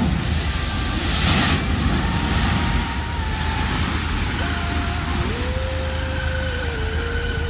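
An SUV driving through deep floodwater, a continuous rush of splashing water over a low engine rumble. The splashing is loudest in a burst of spray about a second in.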